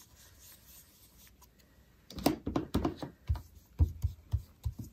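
Stampin' Up blending brush working ink onto cardstock. It is faint at first, then from about two seconds in comes a quick run of soft dabbing taps and scrubbing brush strokes.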